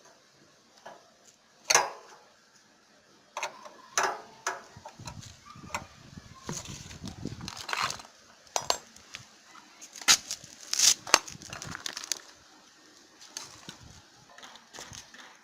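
Irregular metallic clinks, clicks and knocks of tools and metal parts being handled while a generator's air filter housing is screwed back on over the newly fitted carburetor.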